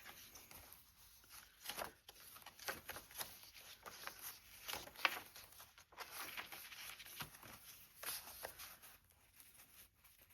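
Faint rustling and light taps of paper and card being handled and laid down on journal pages, in many short, separate bursts.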